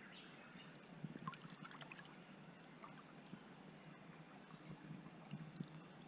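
Faint water of a shallow stream lapping and trickling around someone kneeling in it, with small irregular splashes, over a steady high-pitched drone.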